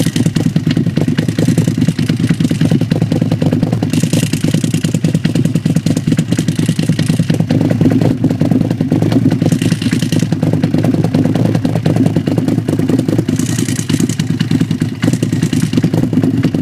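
A motorcycle engine idling, heard close up at its carbon-fibre exhaust silencer: a steady, fast-pulsing low exhaust note that stays even throughout.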